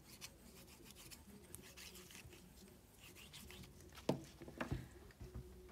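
Faint, soft scratchy rubbing of a seashell burnished over the back of paper on an inked lino block, used as a baren to transfer the print. A brief louder tap comes about four seconds in.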